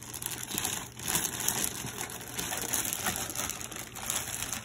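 Clear plastic bag crinkling and rustling unevenly as it is handled and lifted with a doll inside.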